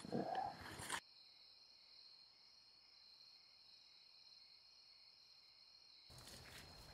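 Crickets chirring in one steady, high, even tone. A short loud sound comes in the first second, and a faint rushing noise joins near the end.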